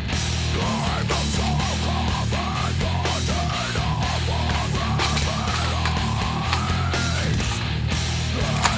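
Heavy metal music with guitar, steady and loud, with one sharp click near the end.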